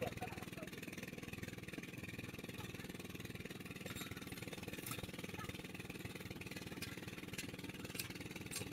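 A small engine running steadily at low revs, with a few faint metal clicks and knocks.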